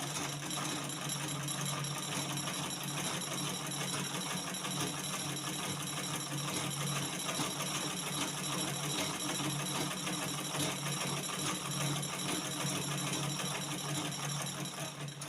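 Black-head Butterfly manual treadle sewing machine stitching steadily, a fast even run of needle clicks over a low mechanical hum; it stops right at the end.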